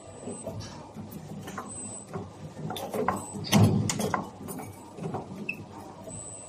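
CNC universal spring forming machine running a forming cycle: its radial tool slides clack and click irregularly as they bend wire into a hook. A louder cluster of knocks comes about three and a half seconds in.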